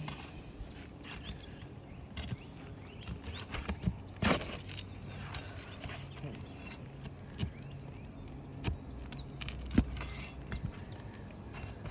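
Scattered light knocks and scuffs on an asphalt shingle roof, with sharper knocks about four seconds in and near ten seconds, over a faint low hum.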